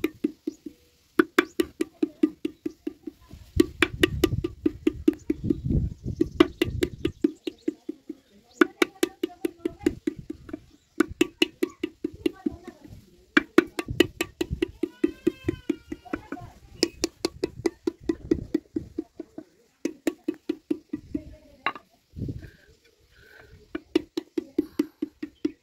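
Wooden paddle beating the wall of an unfired clay pot to shape it: quick runs of knocks, about five a second, with short pauses between runs.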